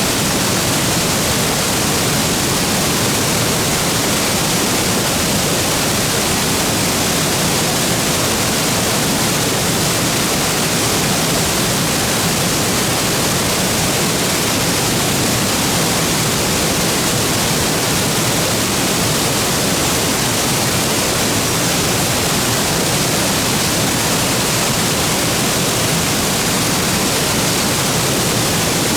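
Waterfall plunging into its pool: a loud, steady rush of falling water with no change over time.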